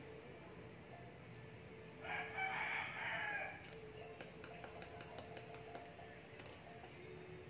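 A rooster crowing once, faintly, about two seconds in, lasting about a second and a half, over a faint steady hum.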